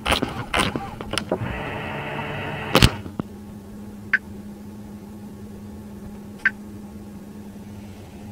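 Clicks from the steering-wheel scroll control, then the Huawei Stelato S9's electric steering-column adjustment motor whirring for about a second and a half and stopping with a sharp click. Later come two short beeps from the touchscreen as it is tapped, over a low steady hum.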